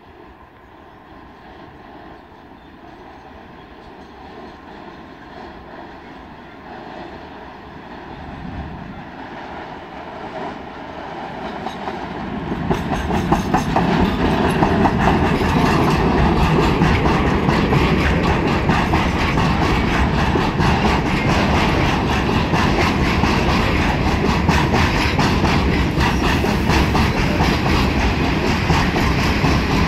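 ET22 electric freight locomotive approaching and passing at speed, hauling a long train of open coal wagons loaded with timber. The sound grows steadily for about the first dozen seconds until the locomotive passes, then turns into a loud, steady, rapid clatter of wagon wheels rolling by.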